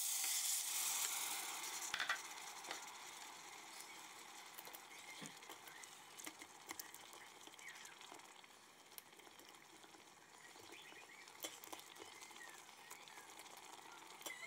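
Water poured into the hot stainless-steel inner pot of an Instant Pot on sauté, over browned chicken breasts, deglazing the pan. It hisses hardest for the first two seconds, then dies down to a faint crackling sizzle.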